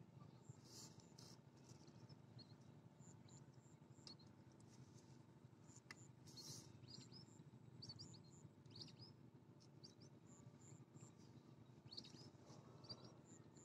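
Near silence with faint, scattered bird chirps over a low background hiss.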